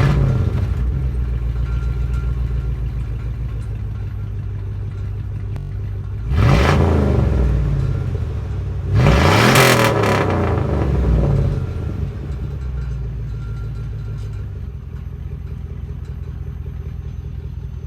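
Exhaust of a 2001 GMC Sierra's engine through a small Cherry Bomb glasspack muffler on straight pipe, idling. The engine is revved twice, about six and nine seconds in, each rev rising and falling back before it settles to idle.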